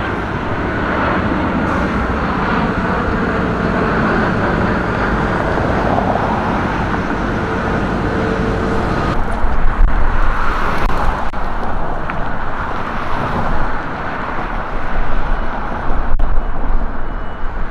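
Steady road traffic noise from passing cars. About halfway through it turns into a rougher, uneven low rumble.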